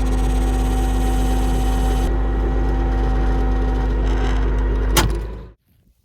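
Tractor engine running steadily with a deep rumble and a steady hum. About five seconds in there is a sharp click, and the engine sound then cuts off abruptly, leaving near silence.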